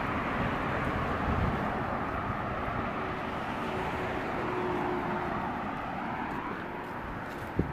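Road traffic: cars driving past on a multi-lane city road, a steady wash of tyre and engine noise that swells as a car goes by. A single short knock near the end.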